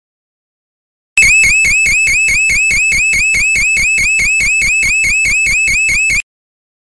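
DNI4310 12 V piezoelectric alarm siren sounding a high-pitched warble, its tone dipping and sweeping back up about five times a second. It starts abruptly about a second in and cuts off about five seconds later.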